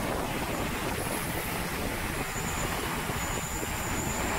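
Large multirotor washing drone hovering, its propellers giving a steady drone, with water hissing from its spray wand.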